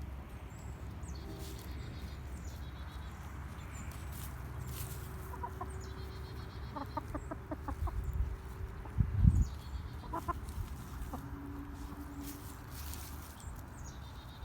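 Chickens clucking, with a run of quick clucks about seven seconds in and another shorter run a few seconds later, over a steady rumble of wind on the microphone. A low thump about nine seconds in is the loudest sound.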